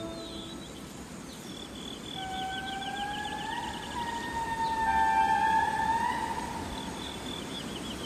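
Indri song: long, held wailing calls that slide upward at their ends, starting about two seconds in, with two calls overlapping in the middle. A fast, high trill runs beneath them.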